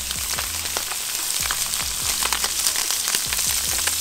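Pacific barracuda fillets searing at high heat in an oiled pan, sizzling with a steady dense crackle of spitting oil.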